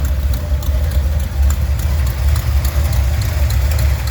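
Buick 455 Stage-1 V8 idling steadily with a light, repeating tick, still there after loose header bolts were tightened; the owner takes it for an exhaust leak at the headers.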